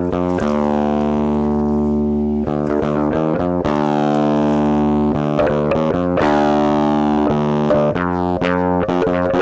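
Background music: distorted electric guitar with bass guitar, sustained chords changing every second or so.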